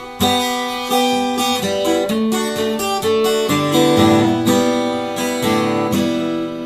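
Background music: an acoustic guitar instrumental passage, strummed chords with a picked melody line.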